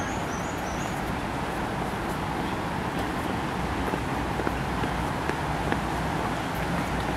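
Steady outdoor city background noise, an even traffic hum. A few short high chirps come in the first second.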